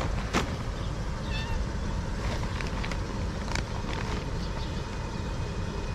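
A cat meowing over a steady low background rumble, with a few sharp clicks.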